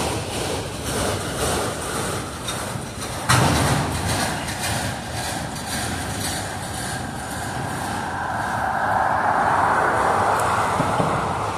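Autorack freight cars of a slow-moving train rolling past: a steady rumble and rattle of wheels and car bodies, with a sharp clank about three seconds in. The rolling noise swells louder over the last few seconds.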